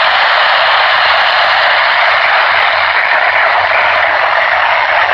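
Steady, loud hiss of a weather-band radio receiver's static: an open channel with no station coming through.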